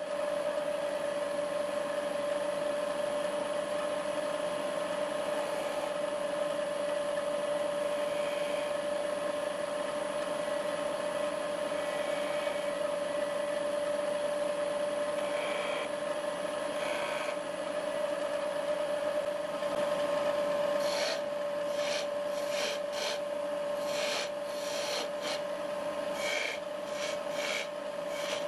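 Wood lathe running with a steady motor whine as a wooden blank spins. From about 21 s, a quick series of short scrapes as a tool touches the spinning wood.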